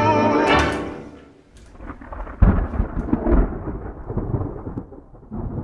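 A low rolling rumble like thunder, breaking in sharply about two and a half seconds in and rolling on in uneven swells that slowly die away. Before it, the last sung note of a French song fades out in the first second.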